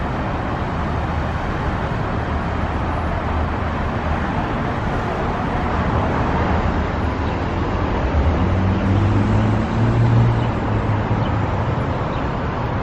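Steady street traffic noise. A vehicle engine's low hum swells from about eight seconds in and eases off a few seconds later.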